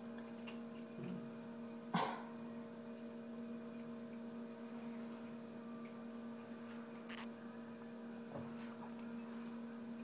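Steady electrical mains hum, with two faint short noises, one about two seconds in and one about seven seconds in.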